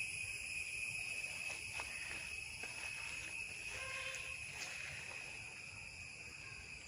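Steady high-pitched drone of insects chirring in the background, with a few faint clicks in the middle.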